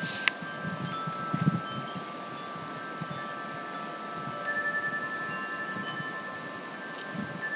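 Wind chimes ringing in long, overlapping tones, a new chime sounding about four and a half seconds in, over the steady rush of a rain-swollen creek.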